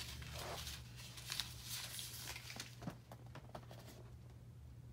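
Faint rustling and scraping as a portfolio is pulled up out of a wooden crate by its paper pull tab, with a few light knocks among the handling; it settles to quieter handling after about three seconds.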